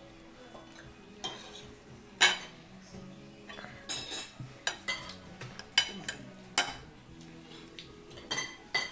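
Metal spoons and forks clinking and scraping against ceramic plates and bowls while people eat: a scattered series of sharp clinks, the loudest about two seconds in.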